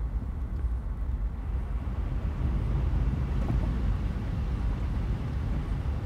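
Vehicle engine and low rumble heard from inside the cab, joined about two seconds in by a steady hiss and wash of water as the tyres drive into floodwater running over the causeway.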